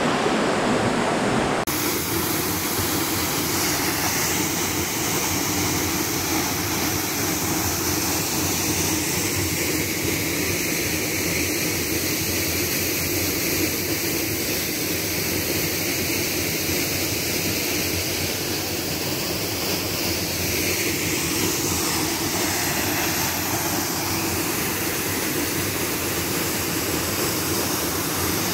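Waterfall: the steady rush of falling water, changing abruptly about two seconds in.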